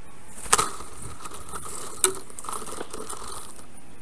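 Two sharp knocks about a second and a half apart, with light crackling, over a steady hiss from the nest-cam microphone. These are most likely the sticks of a black stork's nest clattering as the bird arrives on it.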